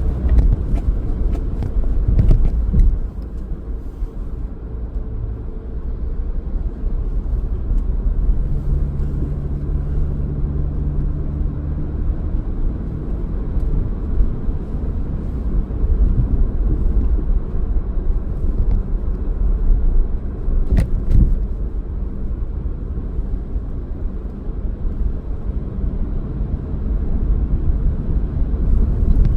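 Car being driven: a steady low rumble of engine and road noise, with one sharp click about two-thirds of the way through.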